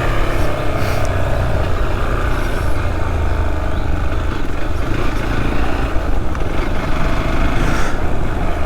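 Motorcycle riding at a steady pace: the engine running under a heavy, even rush of wind and road noise on a helmet-mounted camera's microphone.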